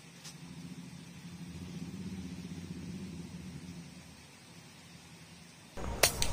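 A low engine hum swells and fades over the first few seconds. Near the end comes a sharp air rifle shot, loudest of all, with a click just after it, as the pellet is fired at fruit in a tree and hits.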